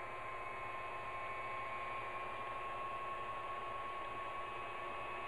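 Stand mixer with a dough hook running steadily, mixing bread dough. It gives an even motor whine over a low hum.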